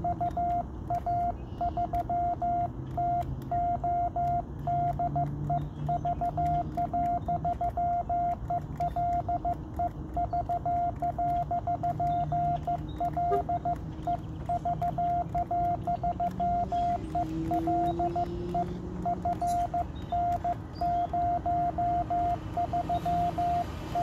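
Morse code (CW) on a 47 GHz amateur radio station: a single mid-pitched beep keyed on and off in dots and dashes, over a steady low background noise.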